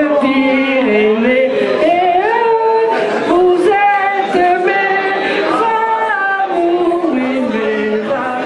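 Men and women singing a traditional local song together, unaccompanied, in held notes that step up and down.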